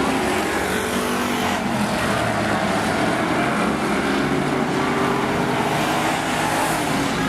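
Engines of several demo race cars running around an oval track, a continuous blend of engine noise rising and falling in pitch as they rev.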